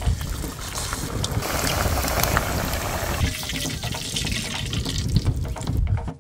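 Corn-dough empanadas frying in hot oil in a pan over a wood fire: a steady sizzle full of small crackles, loudest for a stretch in the middle.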